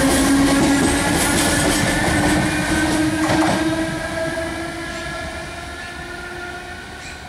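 Two-car DART 8100-class electric multiple unit pulling away along the track. Its steady motor whine and wheel-on-rail noise fade steadily as it recedes, with a single clack about three and a half seconds in.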